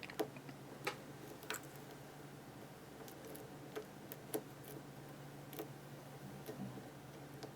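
Faint, irregular clicks of a lock pick and tension wrench working the pins inside a Master Lock No. 532 padlock during single-pin picking, about ten light ticks spread unevenly, over a steady low hum.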